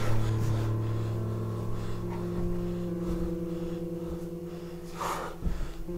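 A steady low drone of several held tones starts abruptly and holds unchanged.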